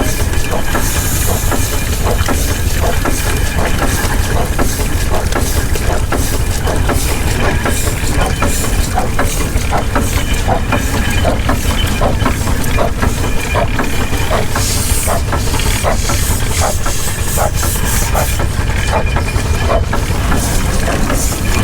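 Steam engine running, with steam hissing over a steady low rumble and many irregular clicks and knocks; the hiss surges briefly about a second in and again past the middle.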